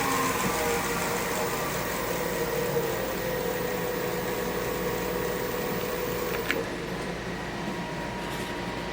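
Powermatic 3520C wood lathe running down, its whine falling in pitch and fading. A click comes about six and a half seconds in, and a steady hum remains after it.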